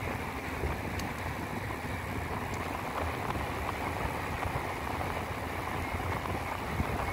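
Steady rushing wind noise on a phone's microphone as a bicycle descends fast down a mountain road.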